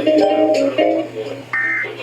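Music playing, and about one and a half seconds in a short burst of Emergency Alert System data tones: the first of the end-of-message bursts that close the AMBER Alert broadcast.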